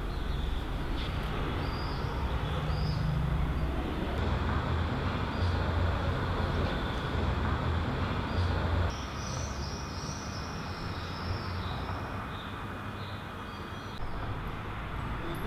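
Outdoor ambience of a steady low rumble with small birds chirping. About nine seconds in the rumble drops away, leaving mainly the bird chirps.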